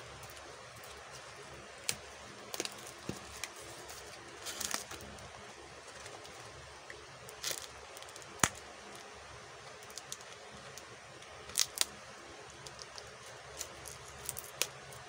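Packing tape being picked at and peeled off a small cardboard box, with scattered sharp clicks and short crackly tearing bursts as the tape and cardboard are handled. The sharpest click comes a little past the middle.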